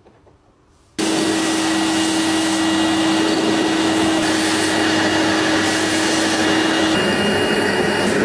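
Metal lathe running, a carbide-insert tool turning the rust off a steel rod. The machine noise comes in suddenly about a second in and holds steady, with a steady tone that stops near the end.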